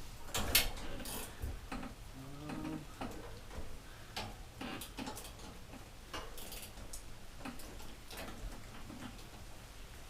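Light, irregular metal clicks and taps from hand tools working on a fastener, with a short creak a little over two seconds in.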